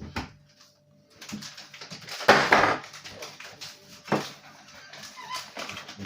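Kitchen handling noise at a worktop: a knock, then rustling with a louder scraping stretch about two seconds in and a sharp click about four seconds in, as the flour and the packet of ready-made pastry are got out.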